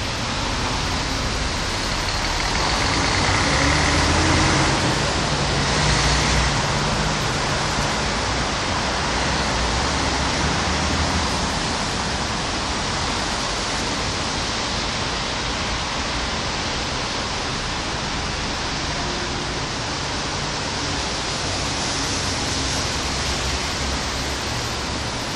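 Steady rain falling, with vehicles passing on a wet street; one passes loudest a few seconds in, with a lower rumble under the hiss.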